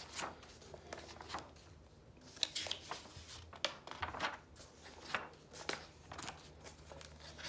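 Pages of a thick softcover workbook being flipped by hand one after another: a string of short, irregular paper swishes and flaps.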